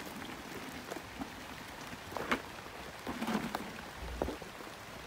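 Light rain falling, with a few scattered soft taps and rustles.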